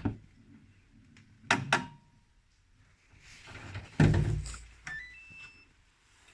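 Knocks and a heavy thunk from handling a Gorenje WaveActive front-loading washing machine, with two sharp knocks about a second and a half in and the heaviest thump about four seconds in. Short electronic beeps from its control panel follow about a second later.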